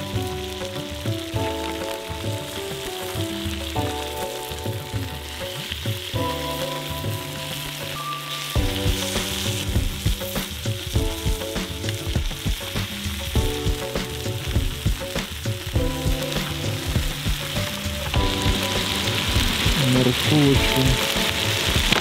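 Plov ingredients sizzling as they fry in a kazan, under background music with chords and a bass line; a steady beat comes in about eight and a half seconds in.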